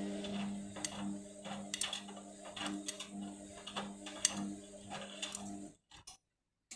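Indesit washing machine's motor humming as the drum turns with an unbalanced load, swelling about once a second, with light clicks and knocks; the machine is struggling to balance the load for its final spin. The sound cuts off near the end.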